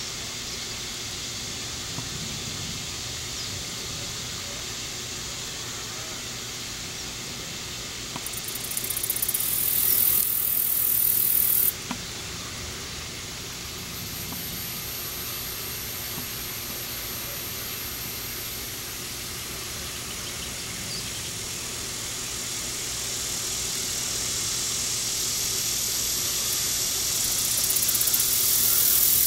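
High-pitched hiss of a summer cicada chorus. About eight seconds in it swells to a loud buzz that cuts off suddenly a few seconds later, then builds again to a loud buzz near the end.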